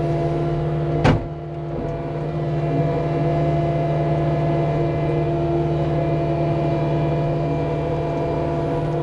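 Cat 259D skid steer's diesel engine running steadily, with a single sharp knock about a second in.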